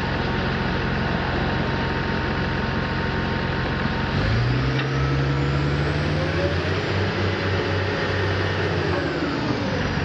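Diesel power pack of a heavy self-propelled modular transporter running, then revving up about four seconds in with its pitch rising, holding, and dropping back near the end.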